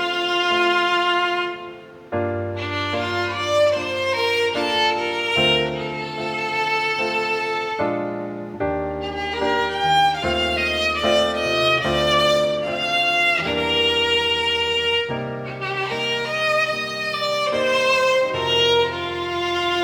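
Violin playing a lyrical melody over an accompaniment of held low bass notes, with a brief pause about two seconds in.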